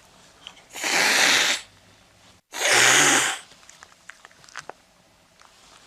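A cat hissing twice: two loud hisses, each just under a second long, about a second apart, followed by a few faint ticks.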